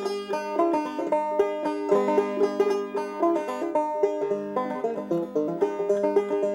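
Five-string banjo played solo, a quick, steady run of plucked notes.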